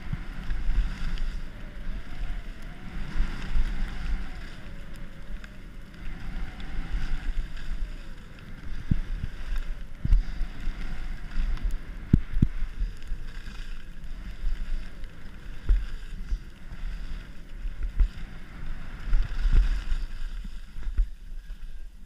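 Wind buffeting a ski camera's microphone over the hiss of skis sliding on snow, with several sharp knocks from about nine seconds in.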